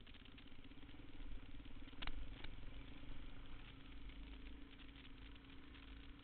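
Single-cylinder dual-sport motorcycle engine running at low speed, its pitch rising slowly, with two sharp knocks about two seconds in.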